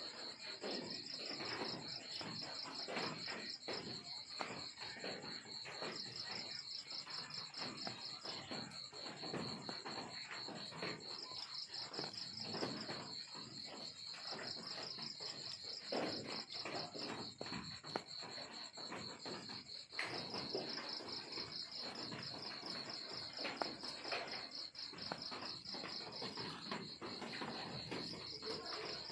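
Crickets chirping: a steady high trill with a second trill that goes in pulsed trains of a few seconds each, over soft irregular crackling and rustling.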